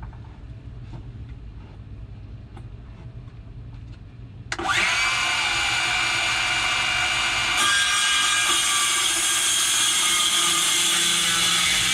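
A power tool cutting a groove in Apitong hardwood. A low hum with light clicks first, then about four and a half seconds in the tool bites into the wood and runs loud and steady with a whine.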